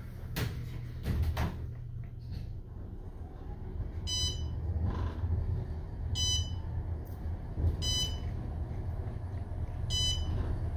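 Inside an Otis Series 5 traction elevator car riding up: a low, steady rumble of the ride, nice and quiet. A short, high electronic beep sounds each time a floor is passed, four times about two seconds apart.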